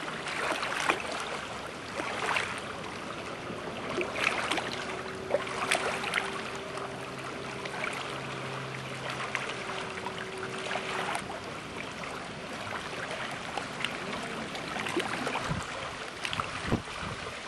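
Water splashing and slapping irregularly against a boat hull as it moves through choppy water. A faint steady hum runs through the middle.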